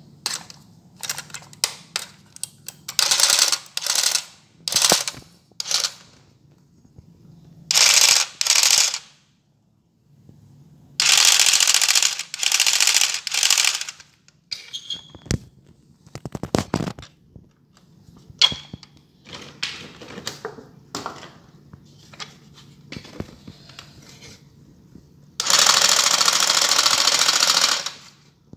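Battery-powered toy jigsaw buzzing in repeated bursts as its trigger is pressed and released, most lasting a second or two, with the longest near the end. Small plastic clicks and knocks come in the gaps between bursts.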